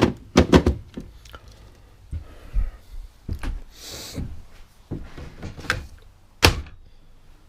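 Sharp clicks and knocks of a cordless power-tool battery pack being slid onto the tool and the tool handled, with a short hiss about four seconds in.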